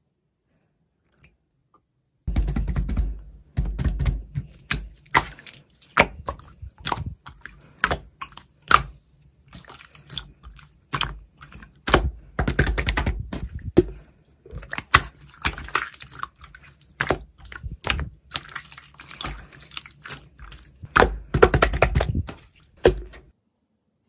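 Clear slime being squished, stretched and folded by hand, giving quick runs of clicks and crackles from trapped air. It starts about two seconds in and stops just before the end.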